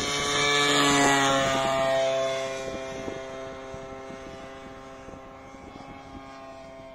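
Radio-controlled model airplane's engine passing overhead. It grows louder to a peak about a second in, drops slightly in pitch as it goes by, then fades steadily as it flies away.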